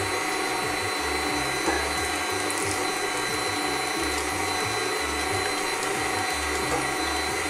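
Planetary stand mixer's motor running steadily at low speed, its beater turning through muffin batter, with a thin high whine over the motor hum.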